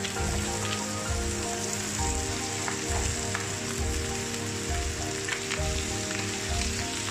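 Spinach, carrots and mushrooms sizzling in a hot frying pan as they are tossed with a wooden spatula, a steady hiss with small scattered ticks. Background music with a steady beat plays underneath.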